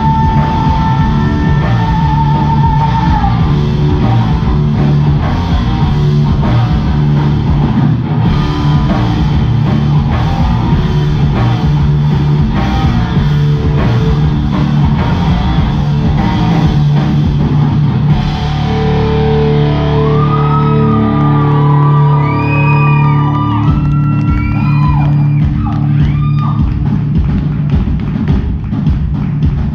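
Live rock band playing loud in a hall: female lead vocal over electric guitars, bass and drum kit, the singer holding a long wavering high note at the start. About two-thirds through, the low end thins out and a high melody line bends up and down, then the drums come back in with a steady beat.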